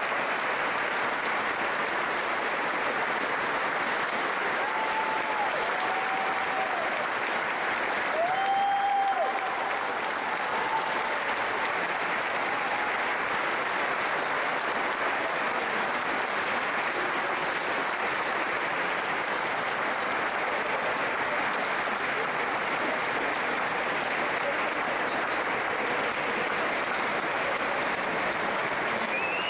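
A large audience applauding steadily, with a few short cries rising above the clapping about five to nine seconds in.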